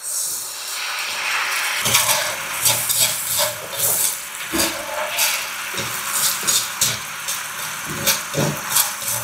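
Fish-sauce seasoning liquid hitting a hot pan of frying garlic and shallot, starting with a sudden hiss and going on as a loud sizzle with many short crackles and spatters.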